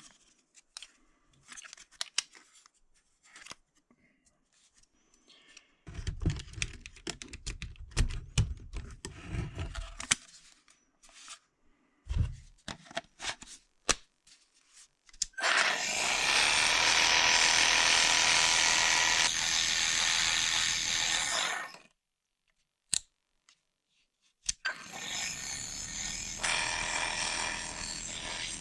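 Parkside 12 V cordless jigsaw: a series of plastic clicks and handling knocks, then the motor and reciprocating blade run steadily for about six seconds and stop suddenly. After a single click it starts again, running more quietly, near the end.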